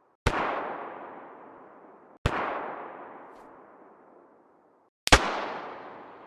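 Three distant rifle shots about two to three seconds apart, each a sharp crack followed by a long echo that fades away over about two seconds.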